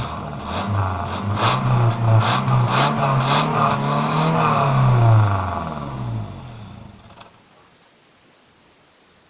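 A 2004 Daihatsu Xenia's 1.3-litre engine is revved in quick throttle blips. An exhaust turbo whistler adds a high whistle that chirps with each blip. The sound fades and cuts off about seven seconds in.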